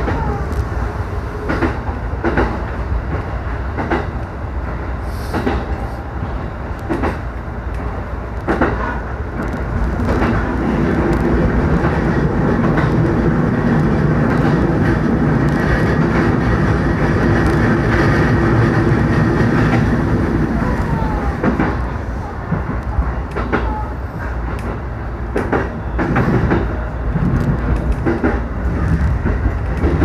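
Electric commuter train running on rails, heard from inside the front car: a steady rumble of wheels and running gear, with sharp clicks over rail joints now and then. The rumble is loudest and most even in the middle stretch.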